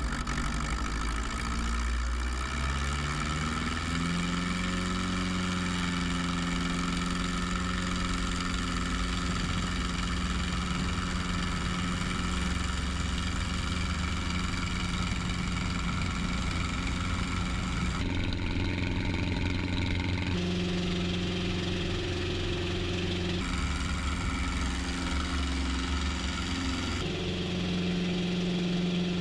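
Carbureted light-aircraft piston engine and propeller of a Lancair 320 at takeoff power during the takeoff roll. The pitch rises over the first few seconds as power comes up, then holds steady. The tone jumps abruptly a few times in the second half as the audio switches between cameras.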